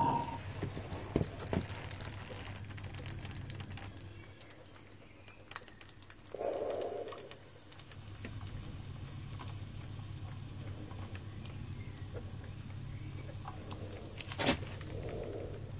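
Faint crackling and scattered light clicks as molten copper is poured from a crucible into graphite ingot molds, over a low steady hum. A short duller sound comes about six seconds in and a sharper click near the end.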